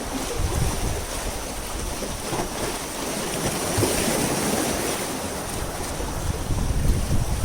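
Wind buffeting the microphone in gusts, over sea waves washing against the shore.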